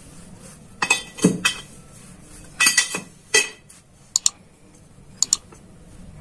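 Hollow square steel tubes knocking and clinking against each other as they are slid and butted into line. There are a few clusters of knocks in the first half, then two pairs of light ticks.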